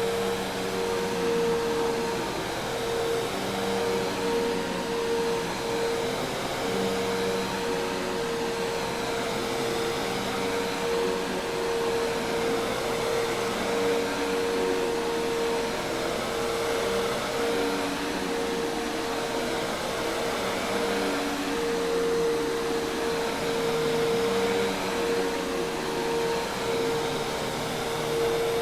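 Hoover Task Vac commercial vacuum cleaner running steadily: an even rush of air with a constant motor whine.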